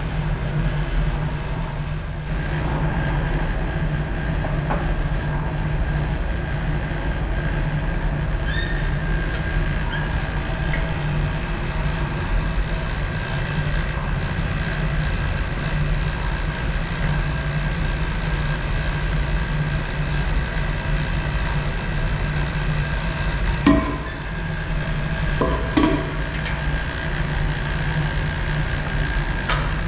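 Steady mechanical hum of running lab equipment: a low drone with a thin high whine over it. Two short knocks about two seconds apart near the end.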